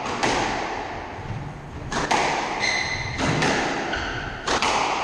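A squash ball being struck by rackets and hitting the court walls during a rally: about four sharp hits, a second or so apart, each ringing in the court. Shoes squeak briefly on the wooden floor between the hits.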